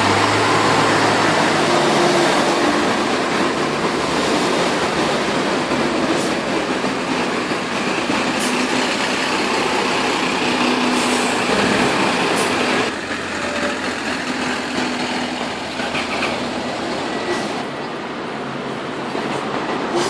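Dennis Dart single-deck bus's diesel engine running close by as the bus moves off, with street traffic noise; the sound drops somewhat about thirteen seconds in.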